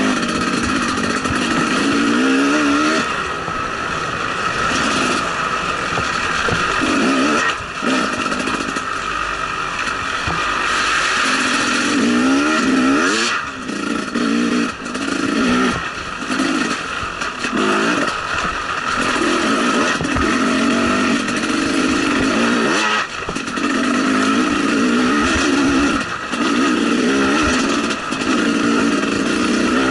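KTM 300 XC two-stroke single-cylinder dirt bike engine under way on a trail, the throttle opening and closing over and over so the engine note rises and falls, with short drops every few seconds.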